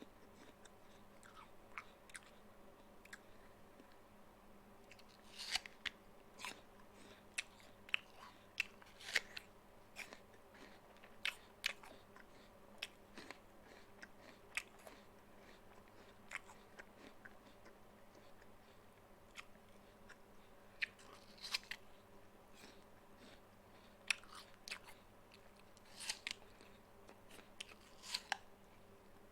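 A person biting and chewing a crisp apple: sharp, irregular crunches with short quiet gaps, sparser in the middle.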